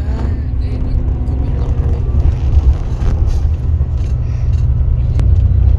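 Steady low rumble, loud and fluctuating, with faint voices in the background during the first couple of seconds.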